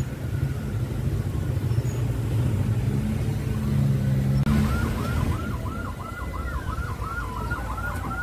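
A vehicle engine runs at low speed. About halfway through, an escort vehicle's electronic siren starts a fast yelp, rising and falling about three times a second.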